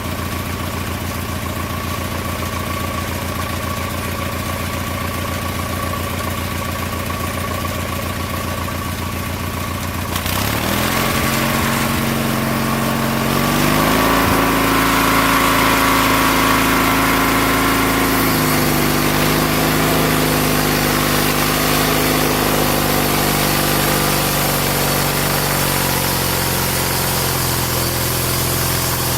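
Sawmill's small lawn-mower engine idling with a fast, even beat, then throttled up about ten seconds in. Its pitch climbs for a few seconds, holds, and eases back a little partway through the rest.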